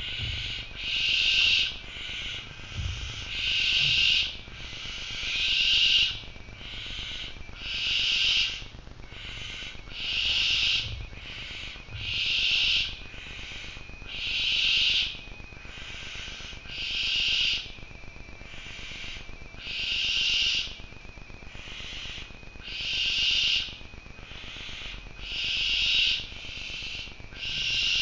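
Young barn owls giving long, rasping hisses, the food-begging calls of owlets at the nest, one about every two to three seconds, each swelling up over about a second.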